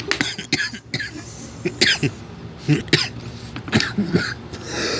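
A person coughing and clearing their throat in short, irregular bursts.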